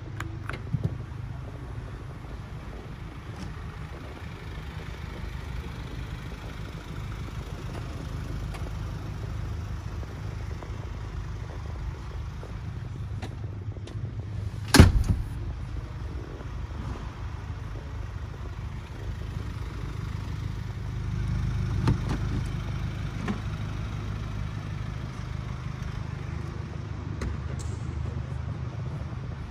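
A door of a Mercedes-Benz V-Class van shutting with a single loud thump about halfway through, over a steady low rumble, with a few lighter clicks from handling the van.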